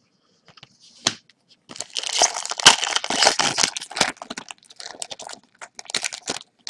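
A 2014-15 Upper Deck Series 2 hockey card pack wrapper being torn open and crinkled by hand. A sharp click comes about a second in, then a couple of seconds of dense crackling tearing, which thins into scattered crinkles as the cards are pulled out.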